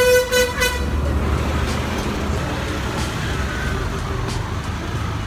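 A vehicle horn blares steadily, cutting off under a second in. Low street-traffic engine rumble follows.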